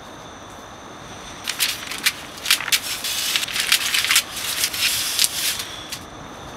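A sheet of paper being crumpled in the hands: irregular crackling that starts about a second and a half in and lasts about four seconds.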